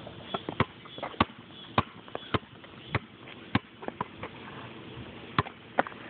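A basketball bouncing: six sharp bounces a little over half a second apart, then a pause and two more near the end.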